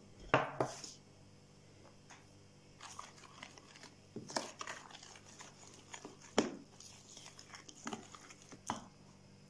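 Fork stirring flour into milk and water in a mixing bowl: faint scrapes and taps of the fork against the bowl, a handful of them louder.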